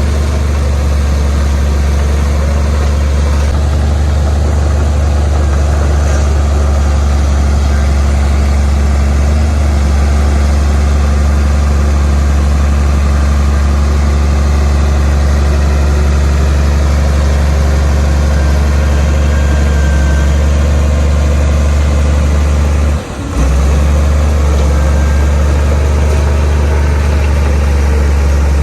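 Diesel engine of a Komatsu D58P bulldozer running steadily with a deep, even hum. The sound dips briefly once, about three-quarters of the way through.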